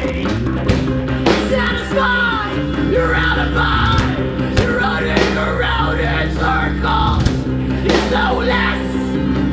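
Rock band playing live at full volume: electric guitars, bass and drums, with a singer's yelled and sung vocals over them.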